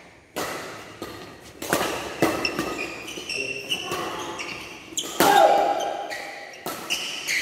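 Badminton rackets striking a shuttlecock back and forth in a doubles rally: several sharp hits that echo in a large hall, the loudest about five seconds in. Shoes squeak briefly on the court between the hits.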